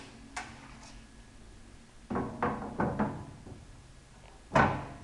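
Knocks and clatter from the sheet-metal access panel of an air compressor's cabinet being handled: a small click, a few knocks about two seconds in, and one loud thump about four and a half seconds in.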